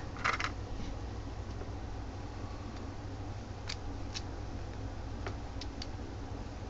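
Small plastic clicks and taps as B-Daman toy parts are handled and fitted together: a quick cluster right at the start, then a few single clicks in the second half, over a steady low hum.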